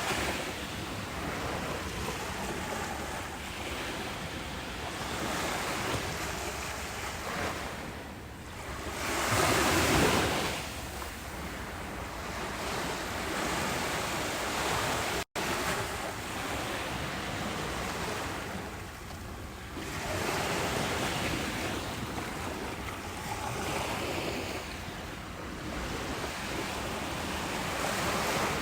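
Ocean surf breaking and washing up a beach: a steady hiss that swells and eases every few seconds, with one larger wave surging about a third of the way in. The sound cuts out for an instant about halfway through.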